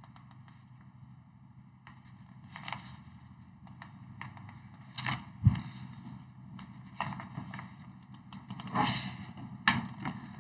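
A few faint clicks and rustles, scattered over quiet room tone.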